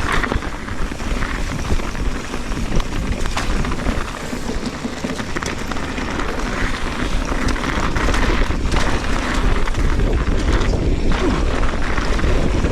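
Wind buffeting the camera microphone over the rattle and tyre noise of a Trek Fuel EX 7 mountain bike descending a frozen, rough trail, with many small knocks as the bike hits bumps. It gets louder in the second half as the speed picks up.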